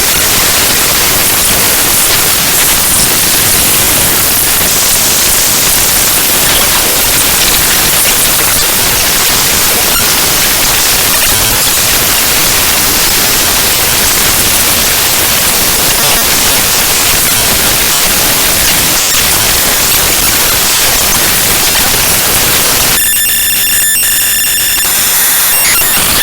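Raw binary data of the OpenGL Extension Wrangler Library DLL played back as audio: loud, harsh static-like noise. About 23 seconds in it changes to a buzz of steady high tones.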